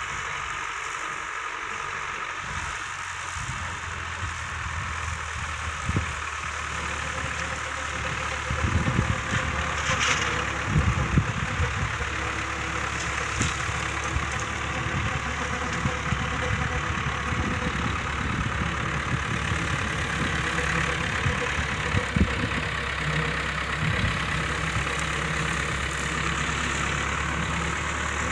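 John Deere 2120 tractor's diesel engine running steadily while it pulls a PZ 165 rotary mower through grass, growing a little louder as it comes closer. A few sharp knocks stand out about nine to eleven seconds in.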